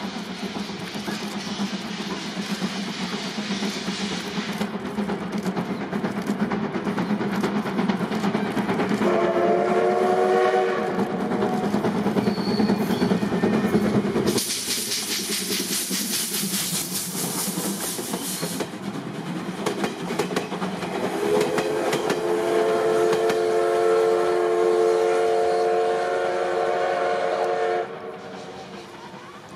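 Steam locomotive C11 325, a JNR Class C11 tank engine, running past under steam, its exhaust and wheels on the rails sounding steadily. Its steam whistle blows briefly about a third of the way in and again long near the end, and a loud hiss cuts in for a few seconds midway.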